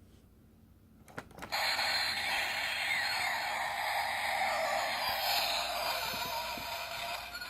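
Miniature DeLorean toy playing one of its built-in sound effects through its small speaker: a few clicks about a second in, then a thin, noisy electronic effect with sweeping tones, lasting about six seconds and cutting off near the end.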